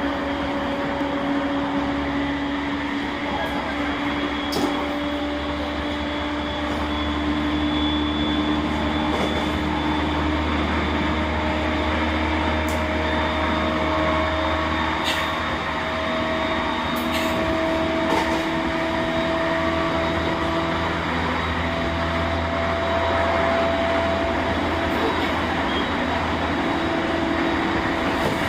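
Running sound from aboard an E231 series 1000 electric commuter train with renewed traction equipment: the traction motors whine with a slowly rising pitch as the train gains speed, over a steady rumble of wheels on rail. A few short clicks sound along the way.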